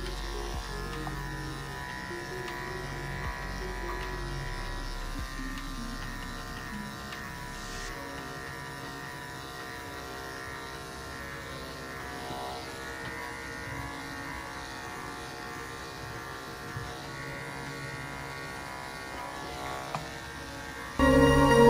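Background music with a buzzy, sitar-like string sound over the steady hum of electric dog clippers. A brief, much louder stretch of steady buzzing comes near the end.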